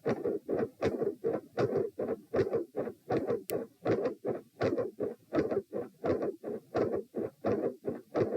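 Heart sounds picked up against the chest: a steady, even run of beats, about three a second.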